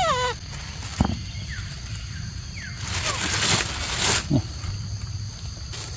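Young macaques give short high calls that fall in pitch right at the start. A sharp knock comes about a second in, then a second-long hissing burst of noise around three seconds, and a short low call with falling pitch just after it.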